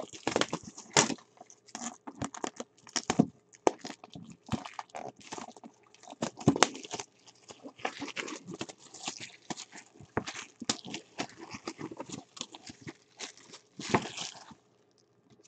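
Plastic wrapping crinkling and rustling as a box of trading cards is unwrapped and handled: a run of irregular crackles, with a few louder ones and a burst about fourteen seconds in as a clear plastic bag is pulled out.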